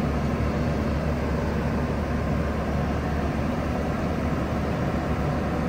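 Grove RT530E-2 rough-terrain crane's diesel engine running steadily with a low hum.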